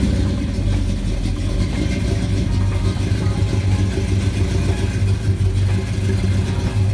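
Classic Dodge Charger's engine running steadily and loudly, with a fluctuating level.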